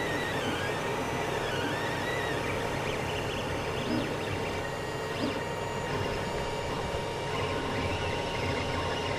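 Creality CR-10 3D printer printing: its stepper motors whine in quickly shifting pitches as the head and bed move, over a steady whir, with a couple of brief clicks about four and five seconds in.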